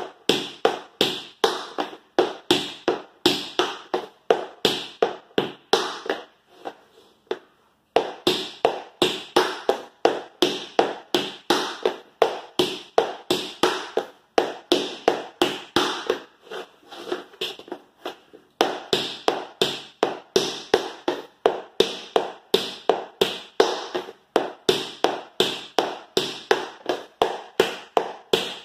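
Metal taps on tap shoes striking a wooden floor, dancing repeated double paradiddles (dig, spank, dig, spank, step, heel) as a fast, even run of sharp clicks. The run stops for about two seconds roughly a quarter of the way in, then picks up again.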